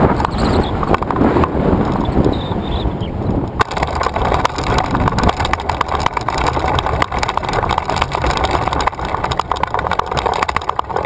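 Wind rushing over the wing-mounted camera's microphone as a tandem hang glider comes down, changing abruptly about three and a half seconds in to the base-bar wheels rolling over rough grass with a rapid rattling and clicking.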